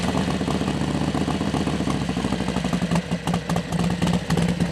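Harley-Davidson motorcycle's air-cooled V-twin engine idling moments after being started, a steady low pulsing beat.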